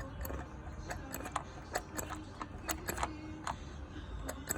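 Irregular sharp metallic clicks from a Mercedes M271 EVO camshaft phaser (adjuster gear) being worked back and forth. The clatter of its rotor against the stops is the sign of a phaser whose lock does not hold, the cause of the phaser knock.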